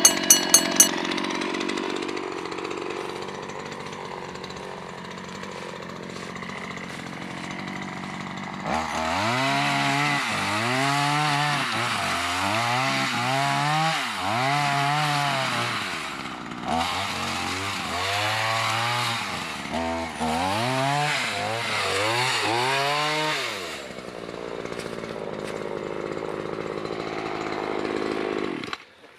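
Chainsaw's small two-stroke engine running, then revved hard about eight times in bursts of one to two seconds as it clears brush, dropping back to idle and cutting off suddenly near the end.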